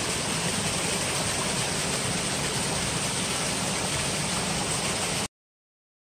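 Steady rush of water from a small stream cascading down over rocks, which cuts off suddenly about five seconds in.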